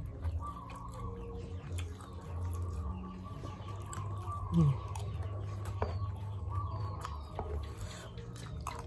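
A person eating with a spoon: quiet chewing and a few light clicks and scrapes of the spoon against food in a banana-leaf wrapper on a plastic plate, over a low steady hum.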